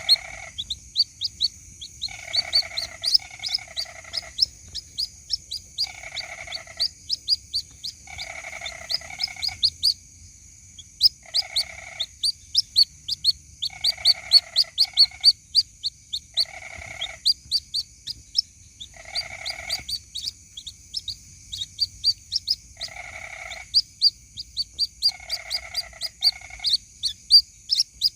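White-breasted waterhen chicks peeping to call their mother: rapid, high, short down-slurred cheeps, several a second. A lower, harsher call about half a second long recurs every two to three seconds, under a steady high whine.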